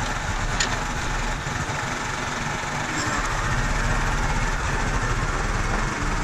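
New Holland TC40 compact tractor's diesel engine running steadily.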